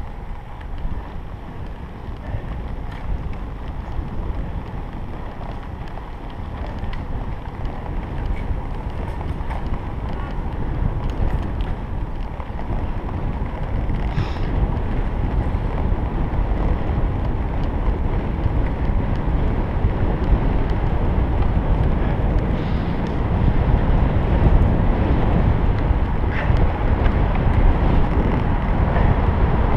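Wind rushing over a camera microphone on a moving road bicycle: a steady noise that grows gradually louder, with a few faint ticks.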